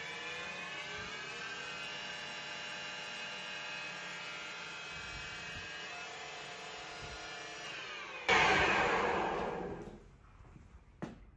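Colchester Chipmaster lathe running, its Vario drive and headstock gearing giving a steady whine of several tones that shifts slightly in pitch. About eight seconds in, a sudden loud rush of noise dies away over about two seconds as the spindle is braked to a stop. A short click follows near the end.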